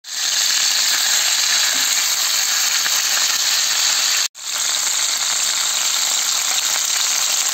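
Skin-on chicken thighs sizzling loudly in a stainless steel frying pan, frying in the fat rendered from their own skin with no oil added. The steady sizzle cuts out for an instant a little past the middle, then resumes.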